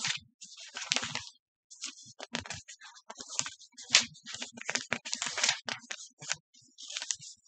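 Irregular rustling and light clicking from hands handling something close to the microphone, in uneven bursts of varying length with short gaps.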